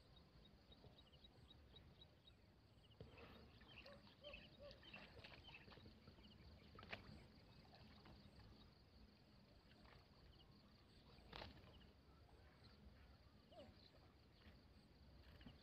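Near silence: faint outdoor ambience with soft water sloshing as a man wades with a cast net, a few faint clicks and faint high chirps.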